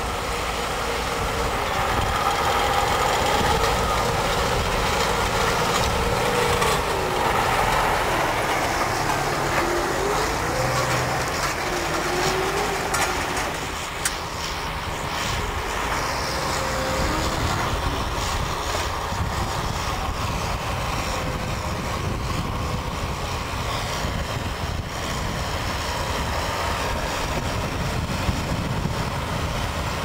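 Six-cylinder diesel tractor engines working steadily under load while ploughing: first a Case IH Puma 230 CVX, then, after a change partway through, a New Holland TM165 pulling a reversible plough.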